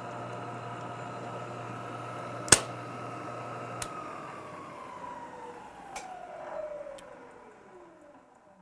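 Precision Matthews PM-949TV milling machine's 3-horsepower variable-speed head running with a boring head in the spindle at the end of a boring cut, with one sharp click about two and a half seconds in. About four seconds in the motor hum cuts off, and the spindle's whine falls steadily in pitch as it coasts down to a stop.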